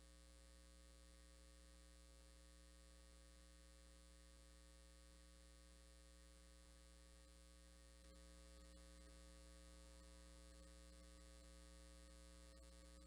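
Near silence with a steady electrical mains hum, a little louder from about eight seconds in.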